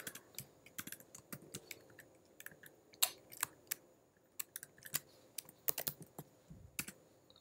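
Typing on a computer keyboard: irregular keystrokes at an uneven pace, with a short pause about four seconds in.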